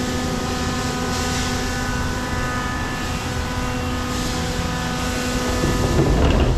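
Hitachi Seiki CNC lathe running with a steady machine hum and a whine of several held tones. A louder rushing noise swells in near the end.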